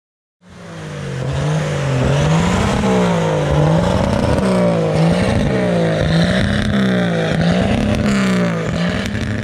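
Classic carbureted pickup engine being revved over and over, its pitch rising and falling about once a second.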